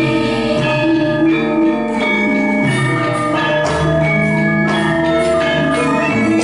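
Javanese gamelan ensemble playing: bronze metallophones and kettle gongs struck in a running melody, their notes ringing on and overlapping.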